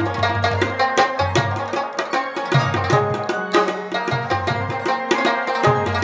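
Instrumental music: a rabab, the plucked lute, playing the melody of an Indian film song over a steady percussion beat and bass line.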